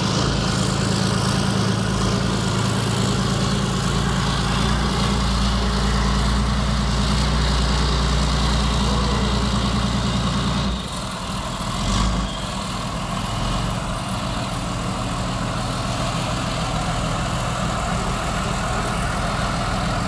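Leopard 2 tank's V12 diesel engine running heavily as the tank drives up a ramp out of the water. About eleven seconds in the low engine sound drops off suddenly as the tank moves into the ship's hold, leaving a quieter steady engine sound with a short knock a second later.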